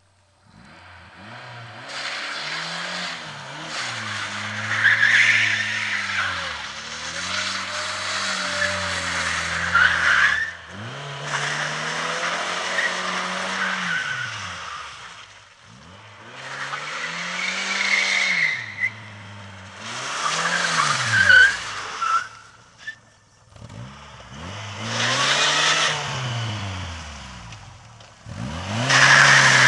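Ford Sierra 2.0i's four-cylinder petrol engine, running on LPG, revving hard and dropping back again and again as the rear-wheel-drive car slides about, its tyres skidding and squealing on a sandy surface. The revs rise and fall about seven times, with two short lulls.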